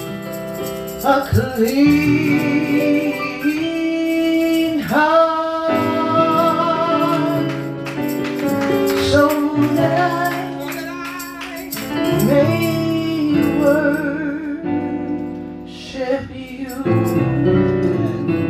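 A woman singing a slow gospel worship song without clear words, holding long wavering notes that slide up into pitch, over steady instrumental chords.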